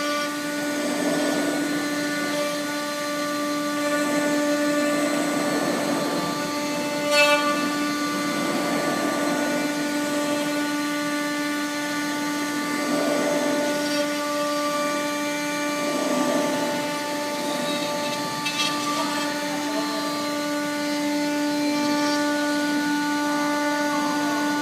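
A 5-axis CNC machine finish machining: the spindle and cutter give a steady, unchanging tone with overtones, while a noisier cutting sound swells and fades every few seconds. A sharp clink about seven seconds in.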